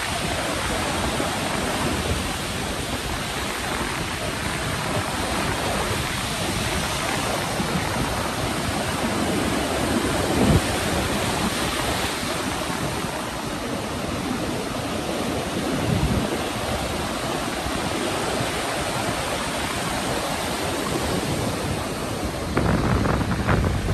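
Heavy storm surf: rows of waves breaking and foam washing in, a continuous rushing noise. Wind gusts buffet the microphone now and then, most strongly near the end.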